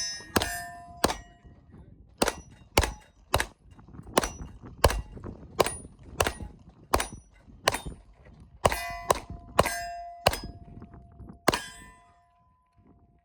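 A string of about sixteen pistol shots at a steady pace at steel targets, many hits leaving the plate ringing with a clear metallic tone. The string stops about twelve seconds in.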